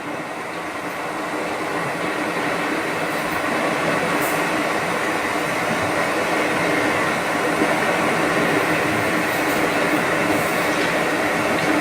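Steady hum and hiss from a Hatch sound machine, gradually fading in and then holding even.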